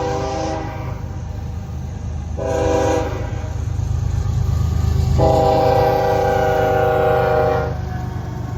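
Canadian Pacific freight locomotive's multi-chime air horn sounding over the steady rumble of the passing train: one blast cuts off about half a second in, a short blast comes a couple of seconds later, then a long blast of about two and a half seconds. The short-then-long ending fits the close of a grade-crossing horn signal.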